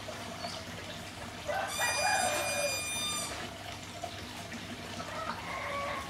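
A rooster crowing once, a single drawn-out call about a second and a half long that starts a little under two seconds in.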